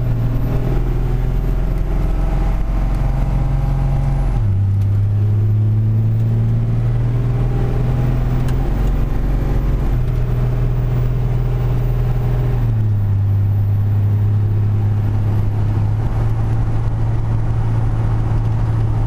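Dodge Ram's 5.9 L Cummins turbo-diesel pulling steadily under load, its low drone stepping down in pitch twice, about four seconds in and again about two-thirds of the way through, as the 45RH automatic shifts up.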